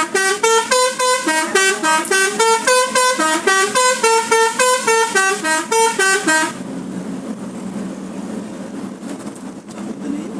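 Telolet bus horn, a multi-trumpet air horn, sounding a fast run of short notes at about four a second. The pitch steps up and down like a tune. It cuts off abruptly about six and a half seconds in, leaving a lower steady hum.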